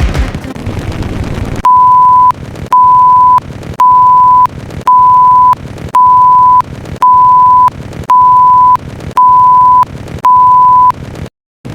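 A noisy stretch of sound at the start gives way to nine loud electronic beeps, each a steady pure tone about half a second long, repeating about once a second. The beeps stop with a brief silence near the end.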